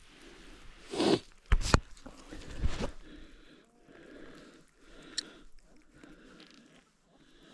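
Rustling, scuffing and knocking as a hooked trout is landed by hand. A loud rush of rustling about a second in is followed by two sharp knocks and another burst, then softer scattered rustles.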